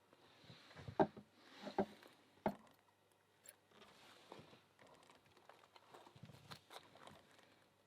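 Faint handling noise while loading pins into a pin-tumbler padlock with thick rubber drysuit gloves: three light knocks in the first few seconds, then small clicks of lock parts over a soft rubbery rustle.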